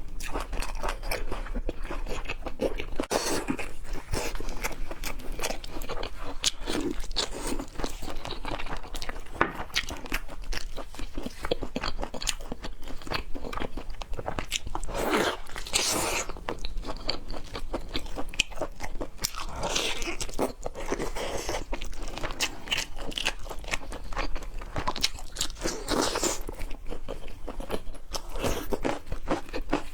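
A person chewing and biting raw seafood sashimi, with continuous wet mouth sounds and many small clicks and smacks; a few louder bites come around the middle and near the end.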